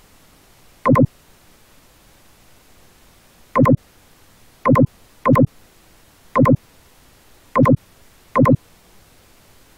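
Seven short, loud electronic beeps, each a fraction of a second long, at uneven intervals over a faint steady hiss.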